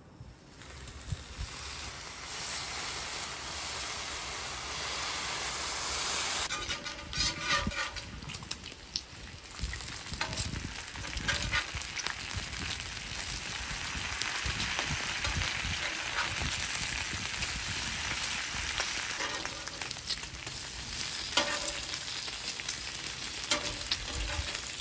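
Raw bacon strips sizzling on the hot steel top of a Camp Chef Gridiron flat-top griddle. The sizzle builds over the first few seconds as more strips go down, and after that a metal spatula scrapes and taps on the griddle among the strips.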